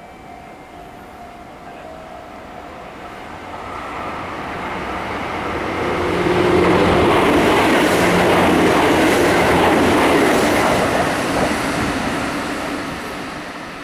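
A train passing close by on steel rails: the rumble of its wheels builds, stays loud for several seconds, then fades away.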